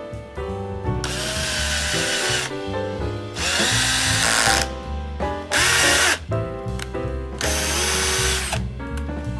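Electric drill run in four short bursts, its motor pitch dipping and rising within each burst, over background music.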